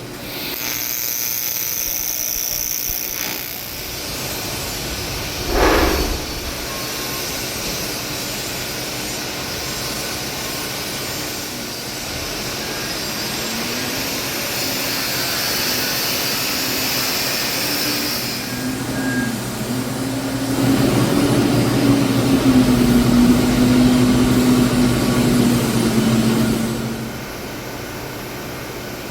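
TIG welding on an aluminium cylinder head: a steady buzzing hiss from the arc and welder, with a short knock about six seconds in. In the second half a humming tone wavers in pitch and grows louder for several seconds, then drops away near the end.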